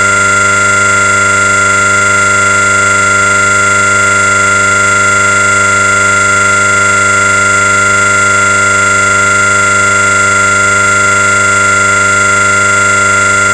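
Loud synthetic drone from an edited 'Colorama' sound effect: a dense chord of many steady electronic tones held without any change in pitch or level.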